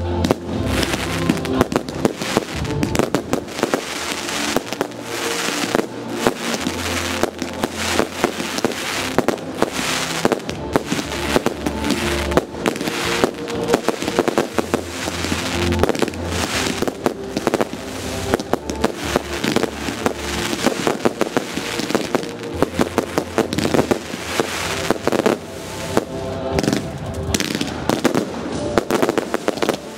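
Aerial fireworks display: shells bursting in many bangs in quick succession, with music playing over the top.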